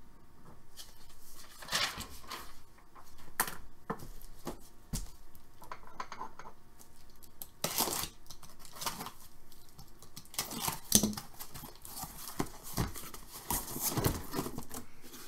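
Cardboard case being handled and opened: irregular scraping, rustling and tearing of the cardboard and tape, with sharp knocks and clicks as it is moved and flipped on the table.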